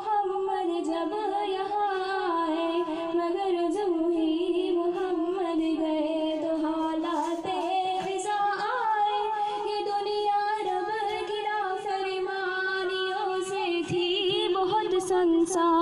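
A woman's voice singing a slow melody in long held notes that waver and bend, with no clear beat.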